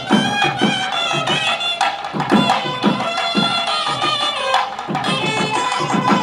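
Music: hand-drum strokes in a steady beat under a sustained melodic line.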